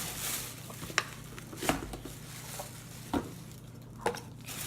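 Items being taken out of a mailed package: rustling of packaging with four light knocks and taps spread through.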